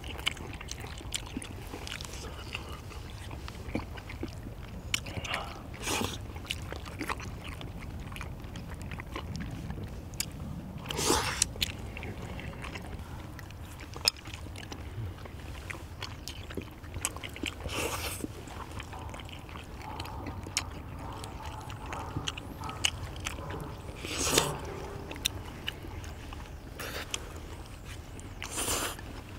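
People eating chewy rice cakes in thick black bean sauce: wet chewing, with a louder slurp every five or six seconds and small clicks throughout, over a low steady rumble.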